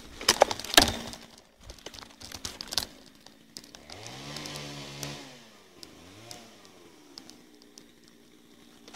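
A few sharp knocks and rustles in the first second, then a motor revs up, holds for about a second and falls away, with a shorter second rev just after.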